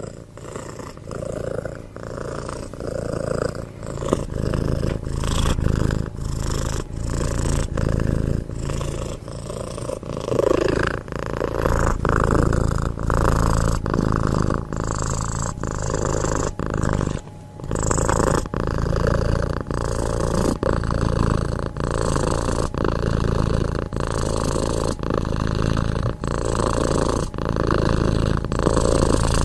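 Domestic cat purring close to the microphone in steady rhythmic pulses, breaking off briefly a little past halfway.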